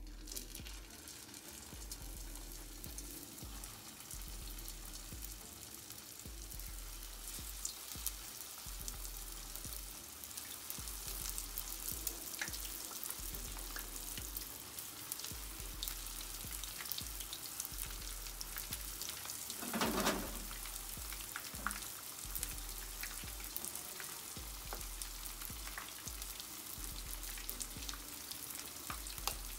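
Spring rolls shallow-frying in hot oil in a frying pan: a dense, steady crackle and sizzle of oil bubbling around the wrappers, getting louder as more rolls are added. A short louder surge comes about two-thirds of the way through.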